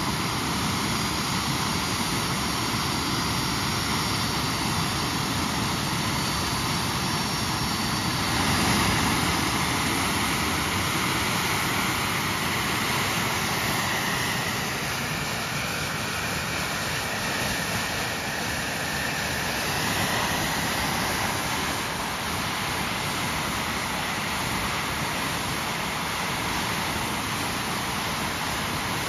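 Single turbojet engine of a TS-11 Iskra jet trainer running steadily on a ground engine test, a continuous jet rush that swells briefly about nine seconds in, with a thin whine coming through for a few seconds in the middle.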